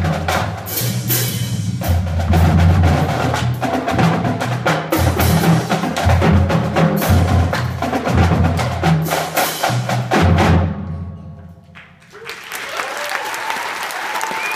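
Marching drumline playing a fast rhythmic cadence on snares and bass drums, with sharp stick clicks, cutting off together about ten and a half seconds in. After a brief lull, the audience starts applauding near the end.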